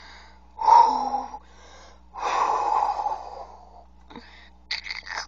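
Breathy, hissing sound effects made with the mouth for a toy fight: a short burst, then a longer one, then a few quick puffs near the end.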